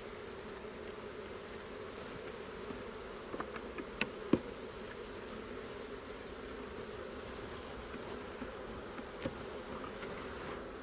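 Honeybees buzzing around an open hive, a steady hum, with a few sharp clicks and knocks about three to four seconds in.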